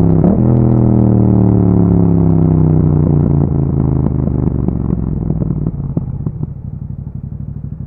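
A 2021 Yamaha MT-07's parallel-twin engine, running through an Akrapovic exhaust, comes off the throttle: after a brief blip just in, the revs fall steadily as the bike slows, with a few sharp crackles from the exhaust. About six seconds in it settles to a lower, steady idle.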